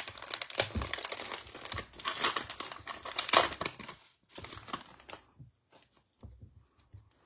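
Plastic wrapper of a trading-card value pack being torn open and crinkled: a dense crackle for about four seconds, then fainter clicks as the cards are handled.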